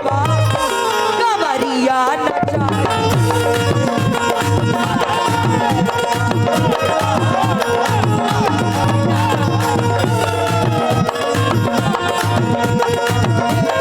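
Indian folk or qawwali-style music with tabla drumming and a melody of singing or instruments.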